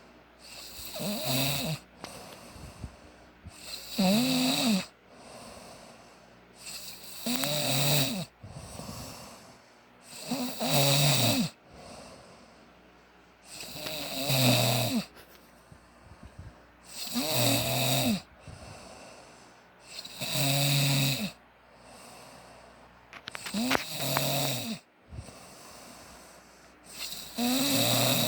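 Snoring in a steady rhythm: about nine snores, each about a second long and roughly three and a half seconds apart, with quieter breathing between them.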